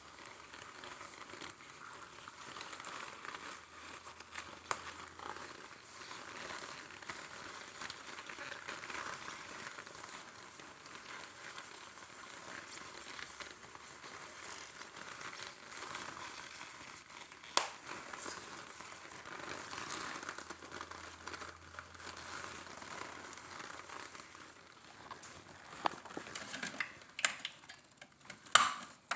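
Coffee maker brewing: a steady crackling hiss and sputter, with a few sharp pops, the loudest about two-thirds of the way through and a cluster near the end.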